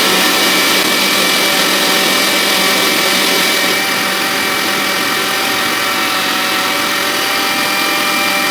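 Countertop blender running steadily, blending lemon pie filling, with a constant motor whine.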